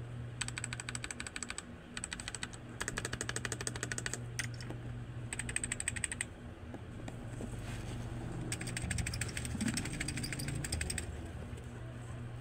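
Fast typing on computer keyboards in about five short bursts of rapid key clicks, as a mechanical keyboard and a membrane keyboard are typed on in turn for comparison.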